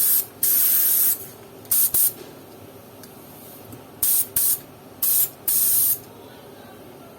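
HVLP spray gun (an H2000 with a 0.7 mm nozzle) being test-triggered: a series of short, sharp hissing blasts of air, several in quick pairs, each stopping abruptly when the trigger is released.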